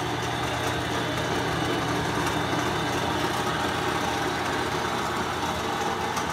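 Toolkraft wood lathe running on its electric motor, a steady hum with mechanical running noise and no workpiece being cut.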